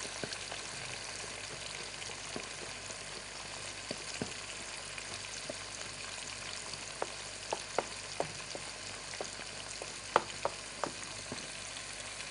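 Oil sizzling steadily as food fries in a pot, with a series of sharp knife taps on a wooden cutting board as olives are sliced thin. The taps are irregular and come mostly in the second half.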